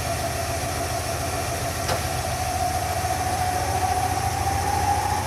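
Hardinge HLV-H super-precision toolroom lathe running in its high spindle range with a chuck mounted, a steady whine that rises slowly in pitch as the variable-speed drive is turned up toward 3,000 RPM. A single light click about two seconds in.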